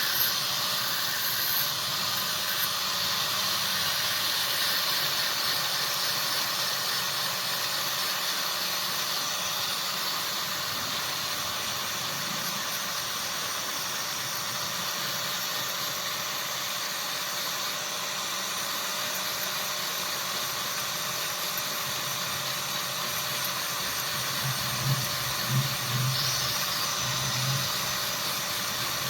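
Steady hissing noise, with a few low thumps near the end.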